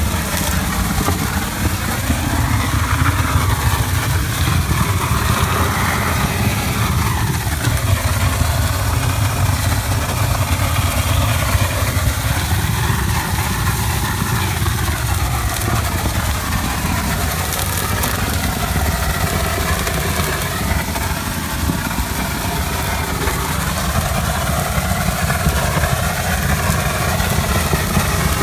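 Shotcrete equipment's engine running steadily, a continuous low rumble with a hiss over it.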